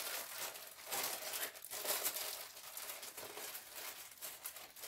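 A clear plastic bag crinkling in the hands as it is rolled up tight around a bundle of grape leaves, in faint, irregular crackles.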